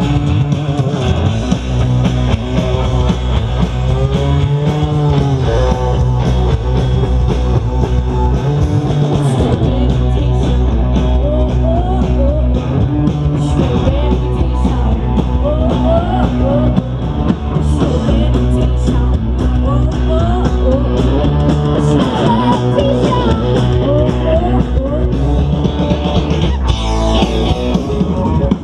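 Live rock band playing through a PA: electric guitars and a drum kit, with gliding, bent notes in the guitar lines.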